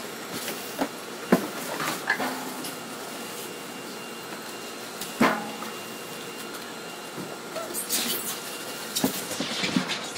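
Handling of a foam shipping cooler and its packing: a few sharp knocks, with rustling of wrapping late on as the foam lid is fitted and pressed down.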